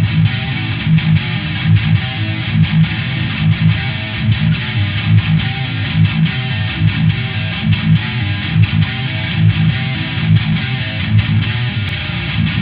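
Background music led by strummed electric guitar with bass, at a steady beat.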